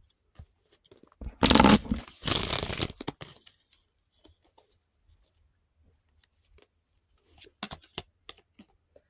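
A deck of tarot cards shuffled by hand: two short, loud riffling bursts about a second apart, then a few soft clicks of cards being handled near the end.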